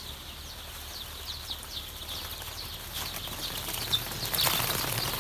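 A brood of two-day-old BV380 layer chicks peeping continuously, many short falling chirps overlapping. A louder rustle about four seconds in.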